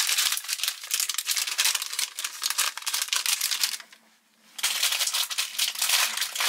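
Thin plastic wrapper of a packet of MRE cream crackers being torn open and crinkled by hand. The crackling stops briefly about four seconds in, then starts again.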